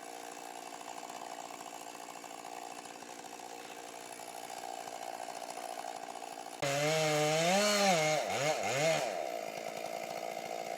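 Chainsaw engine running steadily. About two-thirds of the way in it suddenly gets louder, and its pitch rises and falls for a couple of seconds.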